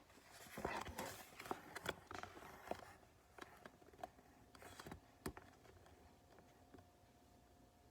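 Faint rustling and soft scattered clicks of a hardback picture book being handled, its page turned.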